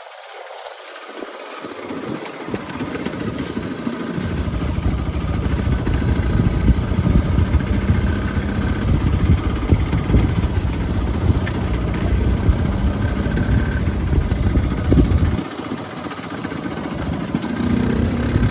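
Motorcycle engine running, getting louder about four seconds in, easing off briefly about fifteen seconds in, then rising again near the end.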